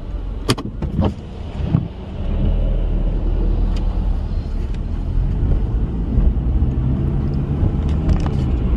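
Car engine and tyre noise on a wet road, heard from inside the cabin. A few sharp clicks come in the first two seconds, then the low drone grows louder and stays steady as the car moves off.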